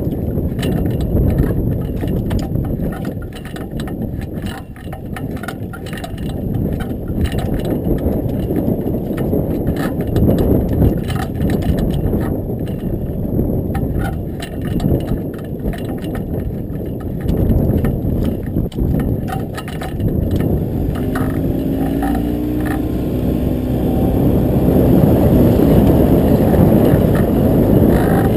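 Wind buffeting the microphone on a small open boat at sea, a rough, uneven rumble with water slapping against the hull.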